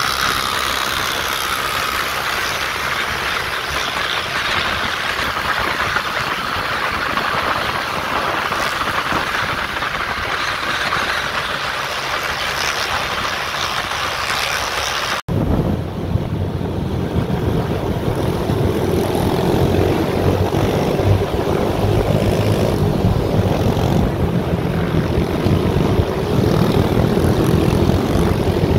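A vehicle under way, its engine running steadily with wind and road noise rushing over the microphone. About fifteen seconds in the sound breaks off for an instant and comes back with a deeper, heavier rumble.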